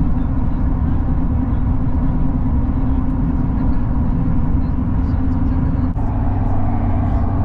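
Car driving: a steady, low road-and-engine rumble, with a brief break and a slight change in tone about six seconds in.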